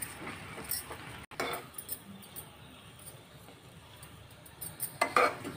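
Faint scraping and clinking of a spatula stirring thick wheat-flour halwa against an aluminium pan, in short irregular strokes.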